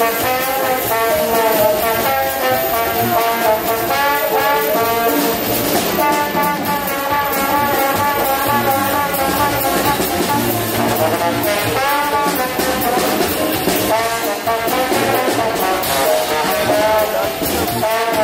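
Brass music playing a melody at a steady level, with brass instruments such as trombone and trumpet carrying the tune.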